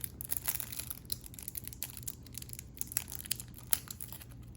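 Plastic wrapping around a stack of trading cards crinkling and crackling in irregular bursts as it is picked and pulled at by hand, hard to get open. A faint low hum runs underneath.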